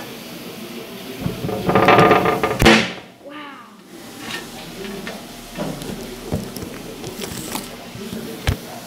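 The recording camera falling over: a loud rustling scrape about a second in, ending in a sharp knock, then the sound goes muffled for a moment, followed by scattered light clicks and knocks as it is handled.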